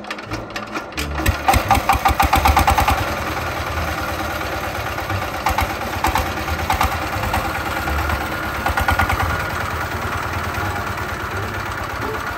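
Single-cylinder horizontal diesel engine of a farm tractor, hand-cranked: it catches about a second in with a loud quick run of firing strokes, then settles into a steady idle with a regular pulsing beat.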